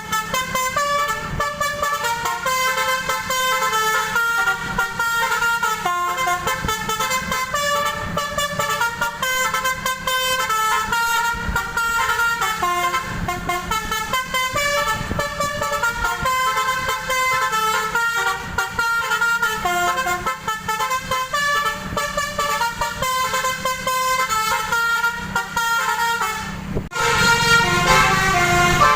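Basuri telolet multi-tone bus horn playing a dangdut koplo melody in quick, stepped notes over a steady low hum. A couple of seconds before the end it stops for a moment, then comes back louder.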